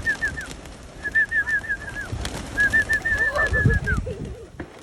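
Runs of quick, clear whistled notes, about six a second, repeated three times: a pigeon keeper's whistle calling his pigeons down to land. Pigeons cooing and flapping underneath.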